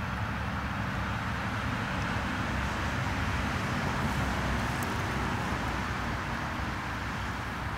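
Steady outdoor background noise: a low rumble under a broad hiss, swelling slightly about halfway through.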